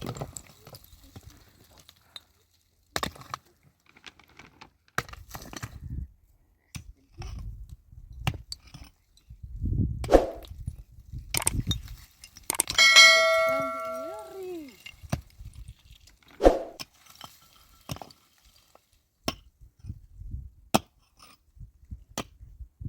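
Scattered knocks and clatter of handling, with one loud metallic clang about halfway through that rings for a second or so before fading.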